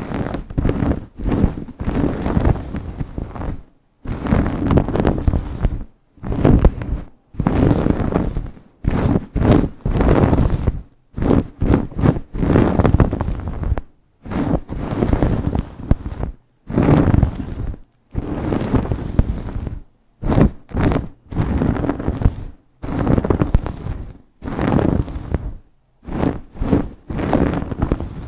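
Long nails scratching and rubbing fast and hard through hair on a scalp, close to the microphone. It comes as a rapid string of rough rustling bursts, each under a second to about two seconds long, with short breaks of silence between them.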